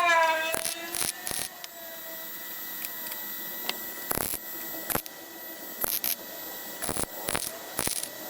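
MIG welder crackling and hissing in short, irregular bursts as patch panels are tack-welded.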